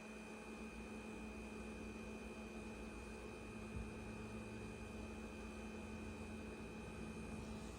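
Ca'Lefort 15-inch wine cooler refrigerator running with a steady buzz: a constant low hum with a thin high whine held above it. This is the bzzzing that the owner finds louder than any other appliance in the house.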